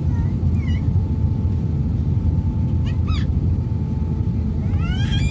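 Steady low rumble of an airliner's jet engines while taxiing, heard inside the passenger cabin, with a faint steady whine over it. A few short high-pitched cries that rise and fall come about three seconds in, and a rising one near the end.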